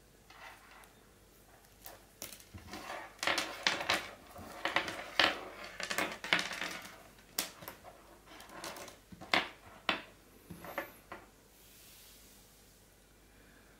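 Wired in-ear earphones being handled: the cable is uncoiled and the earbuds and plug are set down on a tabletop, giving irregular clicks, taps and rustles, busiest in the middle and dying away about three seconds before the end.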